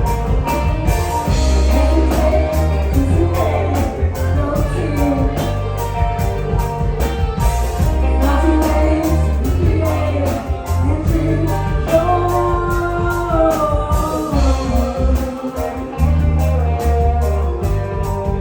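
Live band playing a song: drum kit keeping a steady beat with cymbals, under bass guitar, guitar and keyboards, with a sung melody line gliding over the top.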